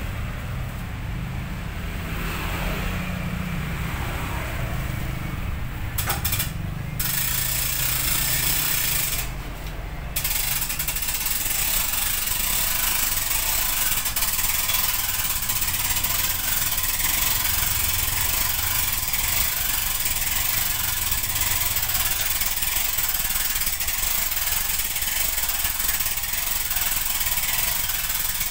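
Hand winch on a homemade pot-lifting forklift being cranked, giving a steady, rapid clicking from about ten seconds in. Street traffic runs underneath, with a low vehicle engine hum through roughly the first ten seconds.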